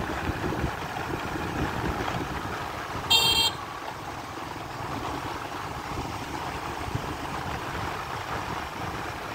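Steady wind on the microphone with low surf washing onto a beach. About three seconds in comes one short, high-pitched horn toot.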